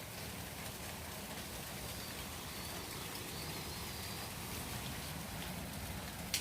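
Steady rain falling, with many small drops ticking on a hard surface and one sharp click just before the end.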